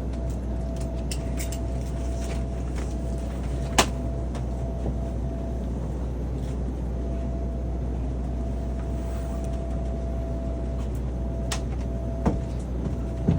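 Steady airliner cabin drone: a low, even rumble with a thin steady hum over it, broken by a sharp click about four seconds in and a smaller one near the end.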